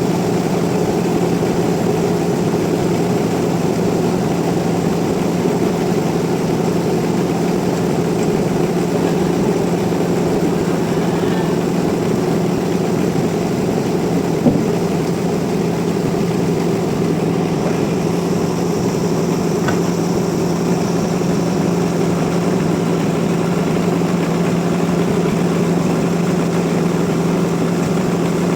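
Sawmill machinery running steadily with a constant low hum, unchanged throughout, with a single brief click about halfway through.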